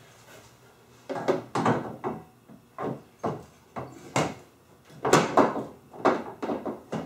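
Irregular knocks, clunks and scrapes of metal parts being handled, about a dozen over several seconds, as a nerf bar and its mounting hardware are set in place.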